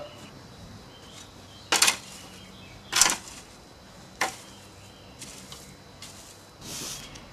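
Three sharp knocks on a concrete stable floor about a second apart, then a stiff broom swishing across the floor near the end.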